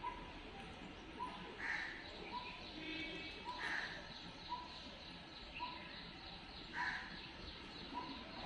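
Birds calling outdoors: one repeats a short note about once a second, while another gives a louder call every two to three seconds, over a steady background hiss.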